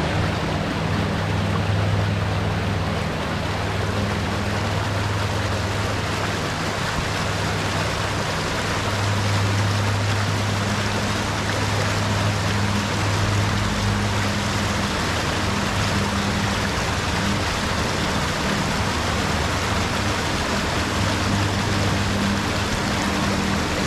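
Small rocky stream rushing and splashing down a short cascade, a steady full rush of water. A low steady hum lies underneath, fading and returning.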